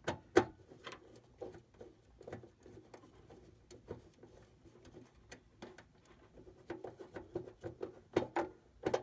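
Small clicks and scrapes of a screwdriver working a screw terminal on an irrigation controller's terminal strip as a wire is fitted into it. A sharper click comes just under half a second in, and a cluster of louder ticks near the end.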